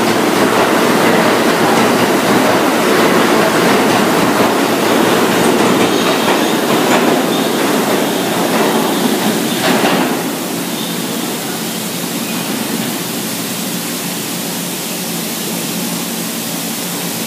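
R160 subway train pulling out of an underground station, its wheels running on the rails in a steady rumble as the cars pass. About ten seconds in the sound drops off to a quieter, steady rush as the train leaves down the tunnel.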